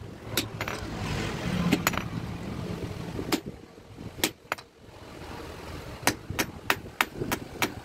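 Hand hammer striking a red-hot steel adze (bashula) blade on an anvil: a few scattered blows, then a quick, even run of about three blows a second near the end. A low rumbling noise swells and fades in the background during the first few seconds.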